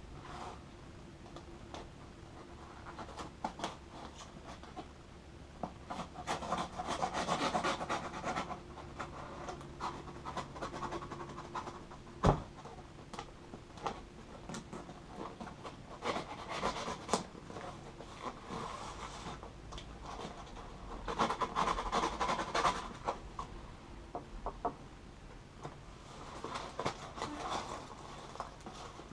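A folding knife slitting packing tape on a cardboard shipping box, and gloved hands opening and handling the box: irregular scraping, rubbing and tearing of tape and cardboard, with a sharp knock about twelve seconds in.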